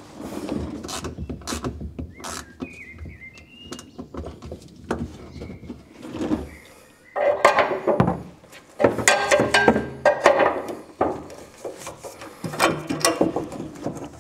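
Clicks, knocks and scrapes of hand tools and metal fittings while a fuel tank strap is fitted under a Humvee, with a short squeak a couple of seconds in and louder metal clattering about halfway through.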